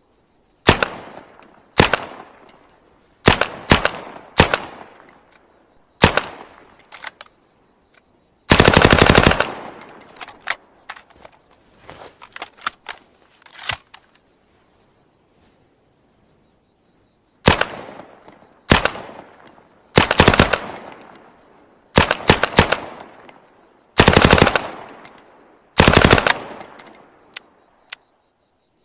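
M1928A1 Thompson submachine gun (.45 ACP) firing a series of short bursts, each trailing off in echo. One longer burst of about a second comes about a third of the way in, and there is a quiet gap of a few seconds near the middle.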